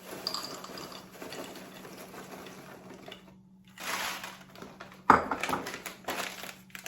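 Cashews being poured and scooped into a measuring cup, a rattling patter of nuts on the cup. There is a short pause, then more pouring, and a sharp knock about five seconds in.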